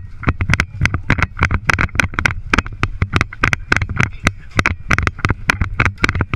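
Rapid, irregular clattering knocks and thumps, about five or six a second, from a player running in airsoft gear: footfalls on wood-chip mulch, with the helmet-mounted camera and kit rattling at every step.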